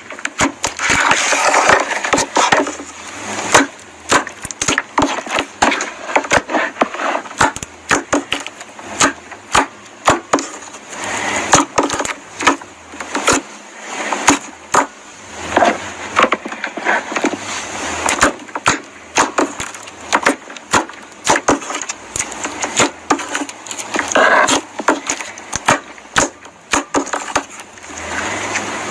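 Clear slime being squished and worked by hand, giving a dense run of irregular sharp pops and crackles.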